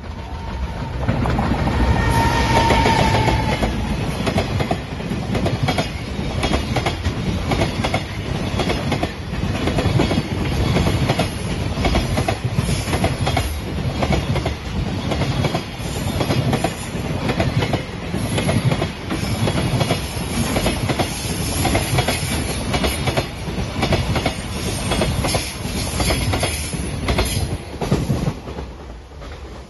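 A container freight train passing close by, its wagon wheels clicking steadily over the rail joints. A short high tone sounds about two seconds in, and the noise drops off near the end as the last wagons pass.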